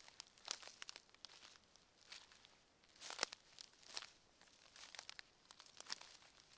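Footsteps crunching and crackling on the forest floor at a slow walking pace, about one step a second.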